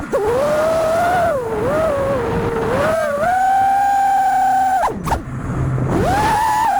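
FPV racing quadcopter's brushless motors and propellers whining, the pitch rising and falling with the throttle. Near the end the whine cuts off sharply, then spools back up about a second later.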